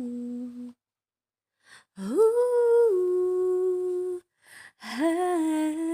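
A lone unaccompanied voice singing long wordless held notes. The last note of the line dies away within the first second. After a short pause and a breath, one note slides up and is held, then steps down. After another breath a further note begins near the end.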